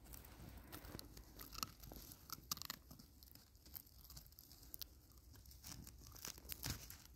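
Great Pyrenees puppy gnawing on a bare twig: faint, scattered crunches and small cracks of wood between its teeth.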